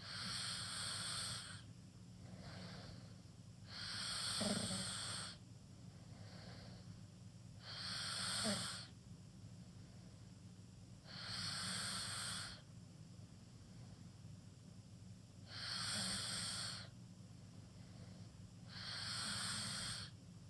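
A teenager snoring with his mouth wide open: six loud breaths about every four seconds, with softer breaths between them, over a steady low hum.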